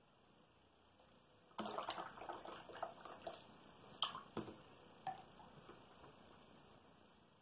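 Paintbrush swished and rinsed in a jar of water, starting about a second and a half in, with a few sharp taps of the brush against the jar around four and five seconds in.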